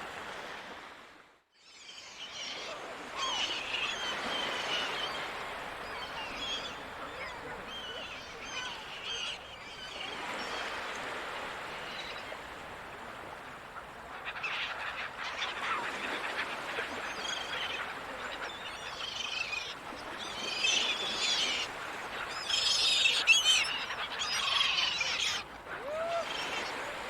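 A flock of gulls calling, many overlapping cries over a steady rushing background, growing busier and louder in the second half. There is a brief drop-out about a second and a half in.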